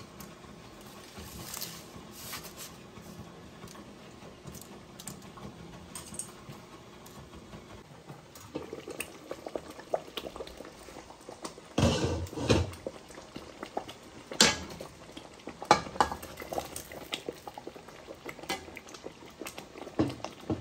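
Pots of water and tomato sauce boiling on a stovetop, with clinks and knocks of a pot and utensils. The loudest is a cluster of knocks about halfway through, followed by several sharp single clicks.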